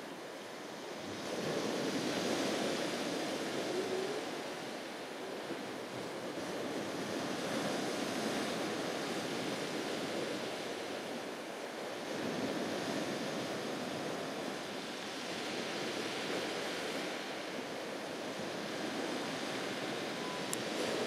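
Surf washing onto a beach, swelling and easing every few seconds, with wind.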